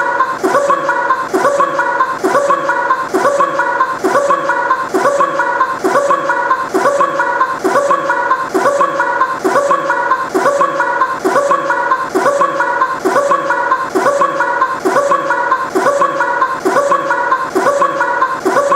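Men laughing hard, in a very even rhythm of about two pulses a second.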